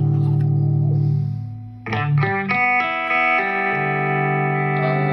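Clean-toned electric guitar through an effects pedal chain and a Vintage 30 cabinet impulse response. A chord rings with a slight regular waver and fades, a quick run of notes comes about two seconds in, and then a new chord is held.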